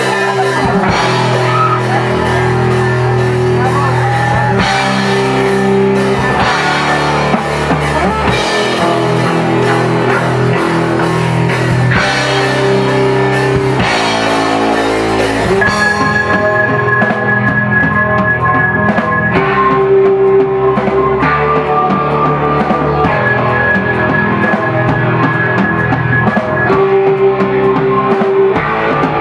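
A rock band playing live, with drum kit, guitar and long held notes over a steady beat.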